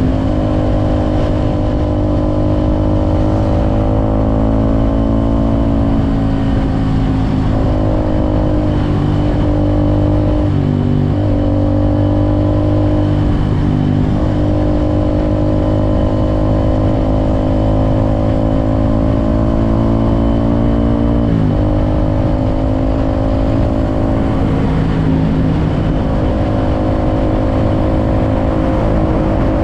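Suzuki Gixxer SF 250's single-cylinder engine running under way, mostly held at a steady note. A handful of brief throttle lifts or gear changes break it, the clearest a falling pitch and step a little past two-thirds of the way through.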